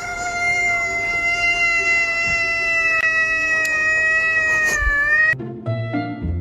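Cat giving one long, drawn-out yowl on a steady pitch that dips slightly just before it stops about five seconds in. Plucked-string music starts near the end.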